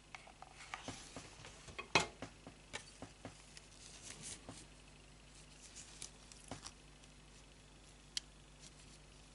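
Hands pressing crocheted leaves onto a tape-wrapped, hot-glued stem: soft rustling and crackling with scattered small clicks, busiest in the first half, with the sharpest click about two seconds in.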